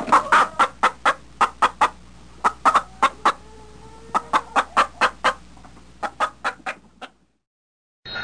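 Domestic chicken clucking: many short, sharp clucks in quick runs that stop about seven seconds in.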